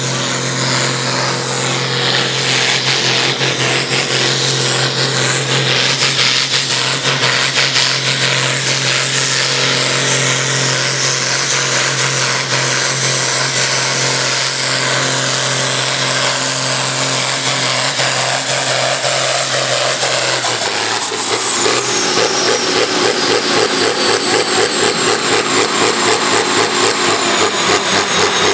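Ford New Holland 8560 pulling tractor's diesel engine running flat out under load, a steady heavy drone. About 20 seconds in the revs drop and the engine settles into a lower, pulsing run, while a high whine falls slowly in pitch.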